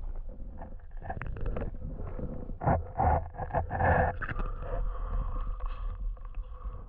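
Muffled water sloshing and knocking picked up by a camera held underwater, with two louder surges about three and four seconds in.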